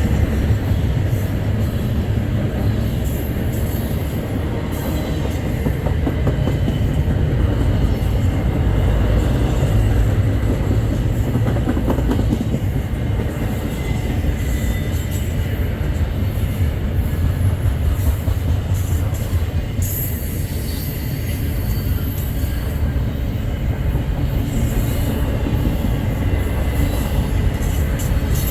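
Freight train cars rolling past close by: a steady, loud rumble with the clicking of wheels over rail joints and faint high wheel squeal at times.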